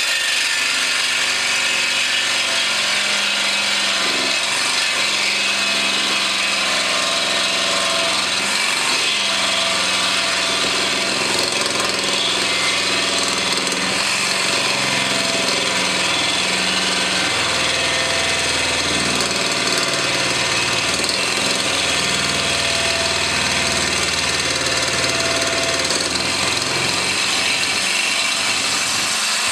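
A jigsaw with a Bosch metal-cutting blade sawing through quarter-inch cast iron plate, running steadily and loudly without stopping. The motor's pitch wavers a little as the blade loads up in the cut.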